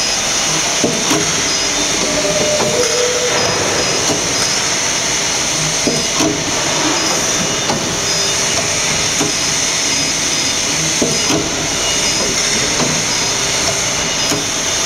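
Rotary plastic-rubber shoe-sole injection moulding machine running: a loud steady hiss with irregular clanks and knocks scattered through it.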